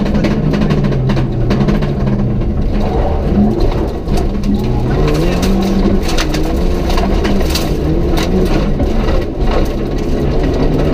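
Rally car engine heard from inside the cabin, revving up and dropping back again and again through gear changes. From about halfway in, stones and gravel rattle against the car as it runs onto a gravel road.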